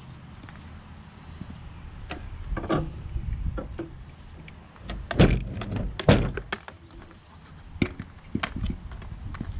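A series of knocks and thuds from equipment being handled and set down, the two loudest about five and six seconds in.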